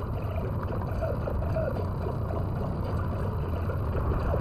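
Steady road and engine noise inside a car cruising at highway speed, picked up by a dashcam microphone: a low, even rumble with no breaks.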